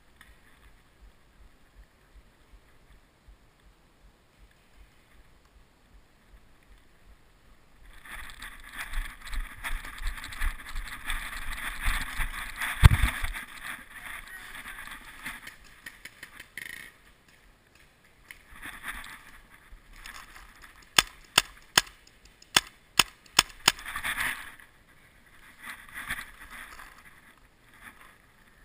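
Rustling and crunching through dry leaf litter, with one heavy thump about halfway through. Near the end comes a quick string of about eight sharp shots from a paintball marker.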